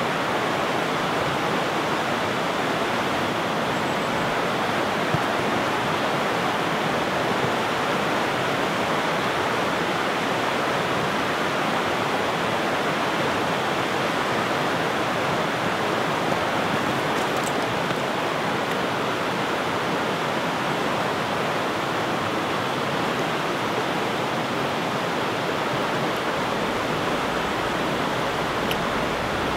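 Rushing river water running over rapids: a steady, unbroken wash of water noise.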